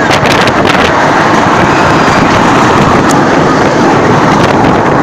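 Loud, steady rushing of wind over a phone microphone on a fast-moving fairground thrill ride.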